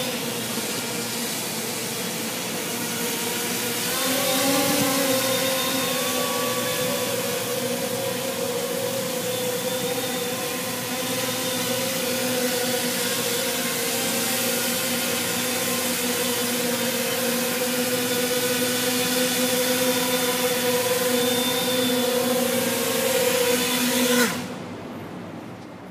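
Custom-built quadcopter's electric motors and propellers running in flight, a steady multi-tone whir that rises in pitch and level about four seconds in. The motors cut out abruptly near the end after the quad has landed, and the sound fades away.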